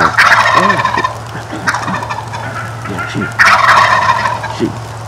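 Osceola wild turkey gobblers gobbling: three loud, rattling gobbles, one about every second and a half.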